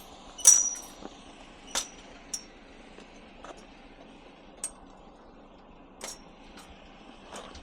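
Metal fold-out bed frame being folded and handled, clanking and creaking: a loud metallic clank with a short ring about half a second in, then a few lighter knocks and clinks spread across the rest.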